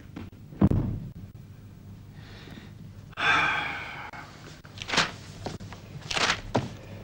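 A door shutting with one sharp thud under a second in. About three seconds in comes a noisy rush lasting about a second, and a few short sharp sounds follow near the end.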